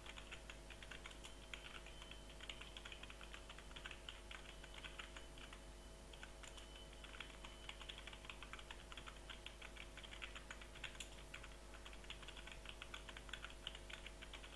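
Faint, quick runs of computer keyboard keystrokes as the capital alphabet is typed out line after line, with a brief pause about six seconds in.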